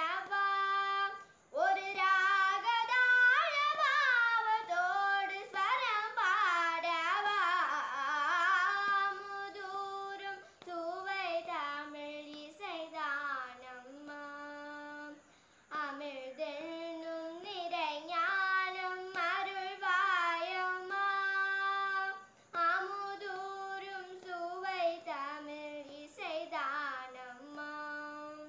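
A young girl singing a Carnatic-style song in Tamil, solo voice, her notes sliding and bending in ornamented phrases separated by short breaths.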